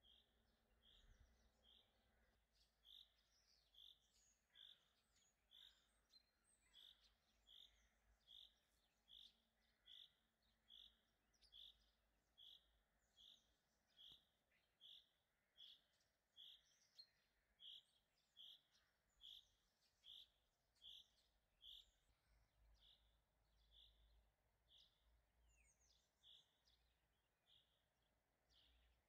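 A bird repeating one short, high call a little under twice a second, faint, with other birds chirping faintly now and then.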